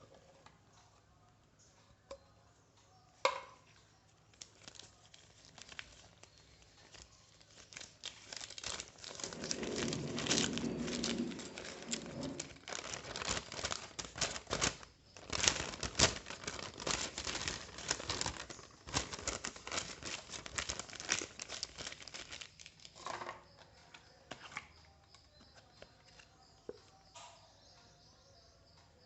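Watch packaging being handled and opened by hand: crinkling and rustling of wrapping with tearing sounds and small clicks. It is busiest in the middle, dense and crackly, and thins out to occasional handling noises near the end.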